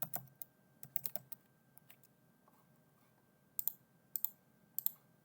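Computer keyboard typing: irregular keystrokes in short clusters separated by pauses.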